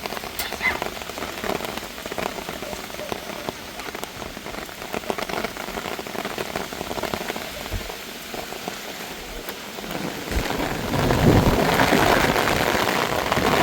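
Heavy rain falling on surfaces, a steady hiss with many separate drop hits, growing louder about ten seconds in.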